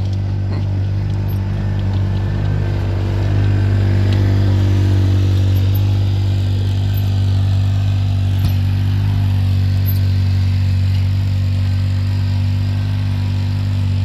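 Side-by-side UTV engine running steadily under load while plowing snow, a loud even drone that swells slightly a few seconds in.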